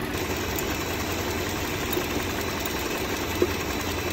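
Kia Forte LX's engine idling steadily while it warms up so the freshly changed automatic transmission fluid can be brought to temperature for the level check. A single brief tick sounds about three and a half seconds in.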